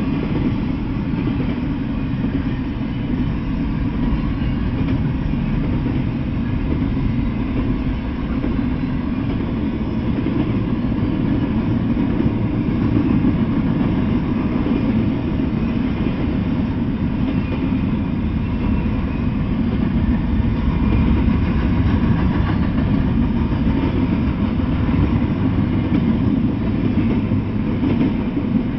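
Intermodal freight train of double-stacked container well cars rolling past: a steady low rumble of wheels on the rails.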